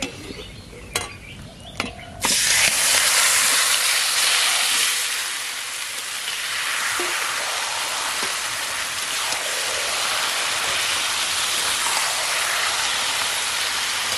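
Marinated chicken going into hot mustard oil in a steel kadai: a few clinks of the bowl and spatula on the pan, then about two seconds in a loud sizzle starts suddenly. The sizzle eases a little after a few seconds and carries on steadily while the chicken is stirred.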